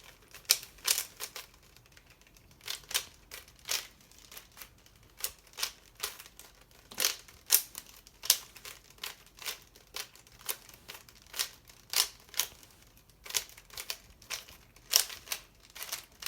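Plastic clicking and clacking of a Rubik's Cube being turned, in quick flurries of twists with short pauses between.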